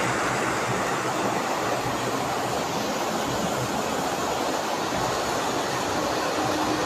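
Heavy rain falling steadily, an even rushing hiss that holds at one level throughout.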